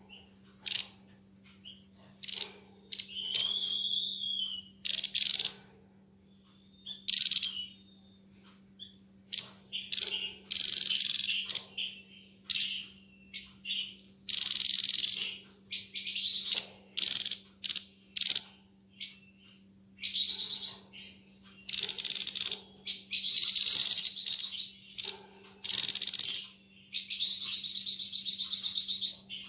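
Tepus dada putih ('sniper bird') singing: repeated bursts of very fast, sharp, rattling high-pitched notes, each lasting a second or two, with a short whistled note among them. A steady low electrical hum runs underneath.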